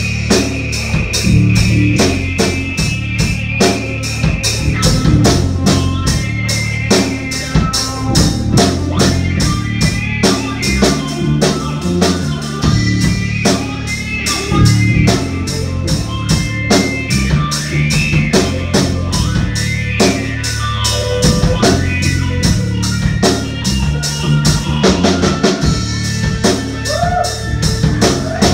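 Live rock band playing an instrumental passage, with no singing, led by a busy drum kit of kick, snare and rimshots over bass and guitar.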